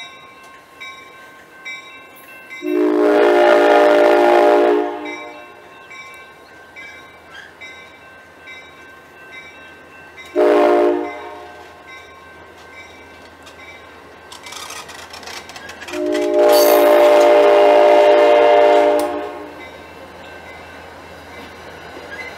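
Passenger train horn sounding three blasts, long, short, long, with the chord of several steady tones clearly heard. Between the blasts the passing cars roll by with faint, regular clicking from the wheels.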